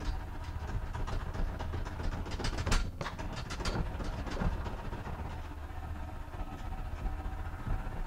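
HappiJac 12-volt electric bed lift running as it lowers a bunk bed and couch. There is a steady low hum with scattered clicks and rattles, bunched together around the middle.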